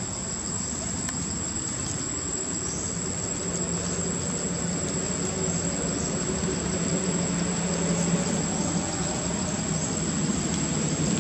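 Steady outdoor background noise with a constant high-pitched whine, joined a few seconds in by a faint low hum like a distant engine idling. The hum grows slightly louder towards the end.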